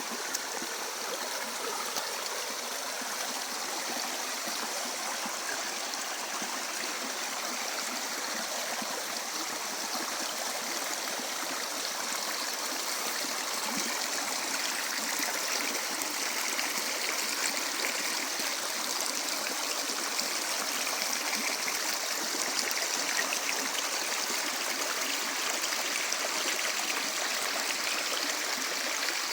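Small river flowing over stones, a steady gurgling and trickling rush of water.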